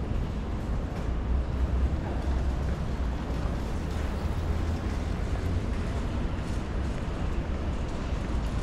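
City street ambience dominated by a steady low rumble of motor traffic.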